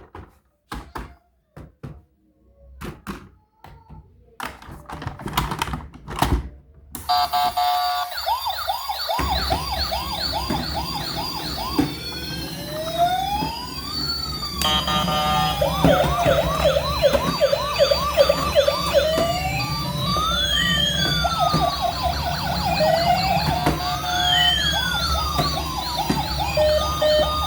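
Several clicks and knocks of handling, then from about seven seconds in several electronic toy-vehicle sirens sounding at once: fast repeated yelps over slow rising and falling wails. A low steady drone comes in underneath a couple of seconds later.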